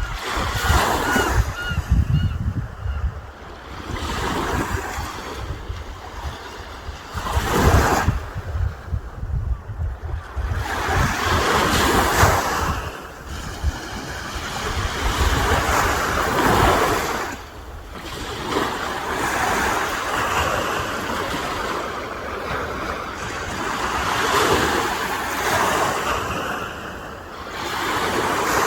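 Sea waves breaking on the shore in repeated surges a few seconds apart, with wind rumbling on the microphone.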